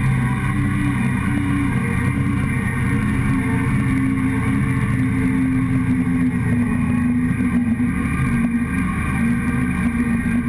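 Motorcycle engine running steadily while riding at a fairly even speed, with only small shifts in pitch, heard close up from a camera on the fuel tank.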